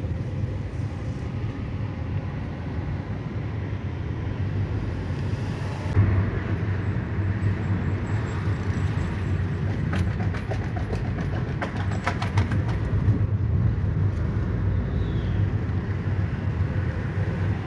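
Engine and road noise inside a moving car's cabin: a steady low rumble. There is a short bump about six seconds in and a run of faint clicks a few seconds later.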